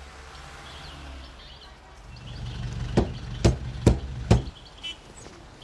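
A low vehicle rumble comes in about two seconds in, then four heavy thumps follow about half a second apart, with faint bird chirps in the background.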